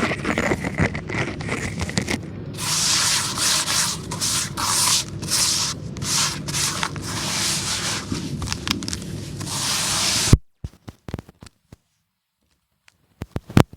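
Dusty, crumbly shapes crunching, crumbling and rubbing apart in a dense, crackly texture that comes in surges, cutting off abruptly about ten seconds in; a few faint clicks follow near the end.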